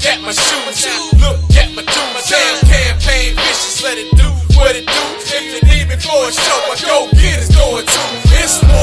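Hip-hop track with a heavy bass beat hitting about every one and a half seconds, under a rapped vocal.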